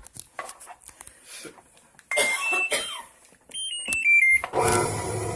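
Whirlpool Cabrio top-load washer's control panel: a few button clicks, short beeps at different pitches as buttons are pressed, then a short falling chime as the cycle is started. Near the end a louder hum with several tones begins.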